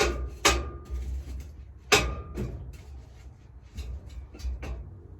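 A series of sharp clicks and knocks from metal tools or parts being handled. The loudest come near the start and about two seconds in, and a couple ring briefly. A steady low rumble runs underneath.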